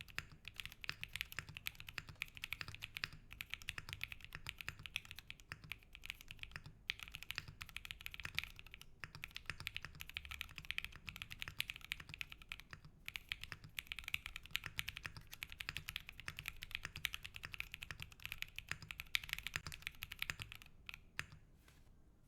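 Continuous typing on a Metakey Tenet70 custom mechanical keyboard, with lubed and filmed SP Star Meteor White switches on an aluminium plate, TX stabilisers and IV Works Kanketsu keycaps. The keystrokes come in a dense, even run with a few brief pauses, and trail off into a few last taps near the end.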